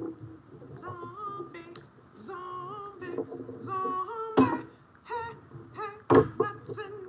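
A woman humming a wordless little tune, holding and bending notes. It is broken by a few sharp knocks, the loudest about four and a half and six seconds in.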